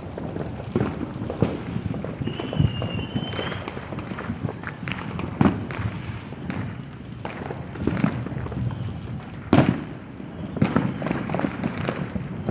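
Fireworks and firecrackers going off all around, many irregular overlapping bangs and pops, the loudest about nine and a half seconds in. A brief thin whistle sounds about two to three seconds in.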